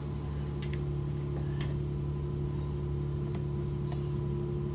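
A steady, low engine hum with a few faint, scattered clicks.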